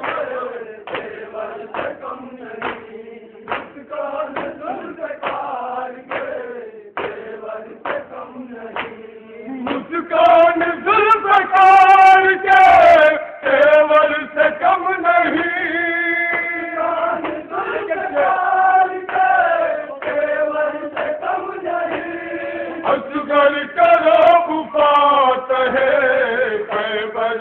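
Men chanting a noha, a Shia lament for the martyrs of Karbala, over a steady beat of chest-beating (matam) strikes about one and a half a second. About ten seconds in, a lead voice takes over, louder, with long held notes.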